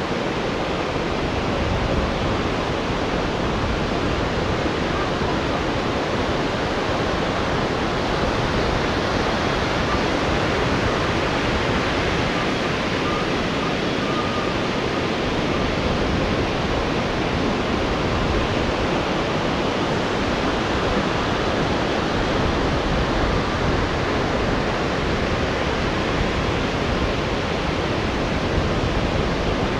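Rough sea surf breaking and washing into whitewater, an even, unbroken rush of water noise.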